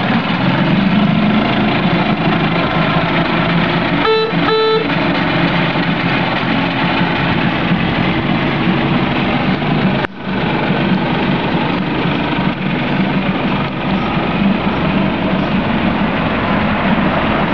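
Tohatsu four-stroke outboard motor running steadily with its leg in a test barrel of water. About four seconds in, the boat's horn gives two short beeps.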